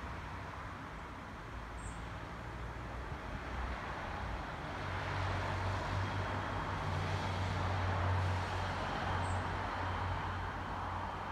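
Road traffic running steadily, with a vehicle passing that swells louder about two-thirds of the way through and then eases off.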